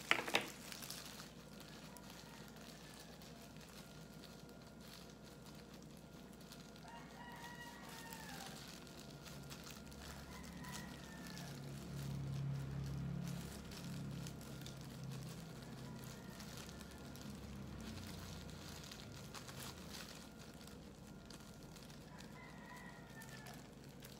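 Rooster crowing faintly three times, each call an arched, rising-then-falling cry. A sharp knock sounds right at the start, and a low rumble swells and fades in the middle.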